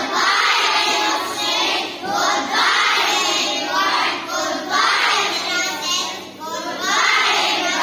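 A group of children singing together, line by line, with brief pauses between phrases.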